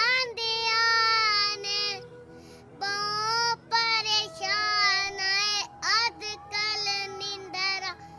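A young boy singing in a high voice, holding long notes that slide in pitch, in several phrases with short breaks between them.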